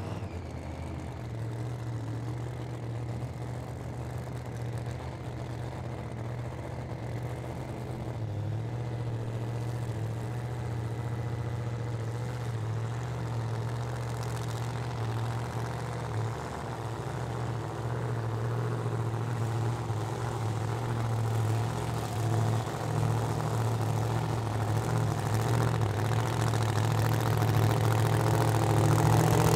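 Supercharged 521 cubic inch BAE Hemi on methanol, in a 1999 Holden VT Commodore doorslammer, idling with a steady deep lope. It grows gradually louder toward the end as the car rolls forward.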